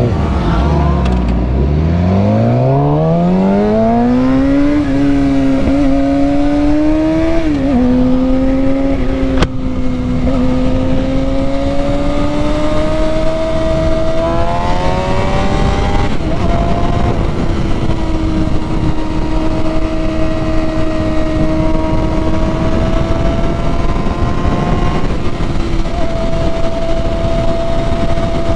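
600 cc inline-four sportbike engine pulling hard, its pitch rising steeply over the first few seconds, dropping at an upshift about seven seconds in, then climbing again and settling to steady high revs, with wind rushing over the rider.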